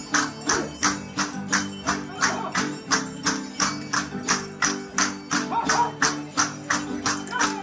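Live folk music: an even percussion beat of about two and a half strokes a second over steady held chords, with a voice singing briefly near the end.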